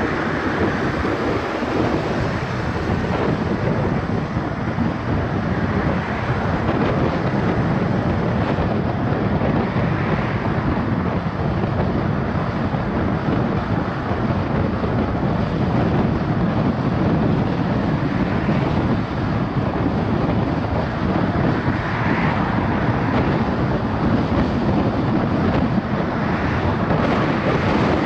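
Steady road and wind noise of a car driving at speed, with a few brief swells along the way.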